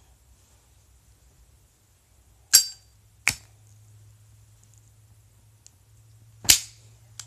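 Zippo lighter worked with finger snaps in the double-snap trick: two sharp snaps under a second apart, about two and a half seconds in, as the snapping fingers flick the lid open and then strike the flint wheel, followed by another loud sharp snap near the end.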